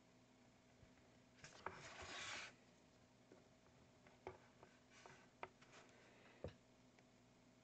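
Faint handling sounds of a paintbrush and small canvas panel on a paper-covered table: one brief rubbing scrape about two seconds in, then a few light taps and clicks.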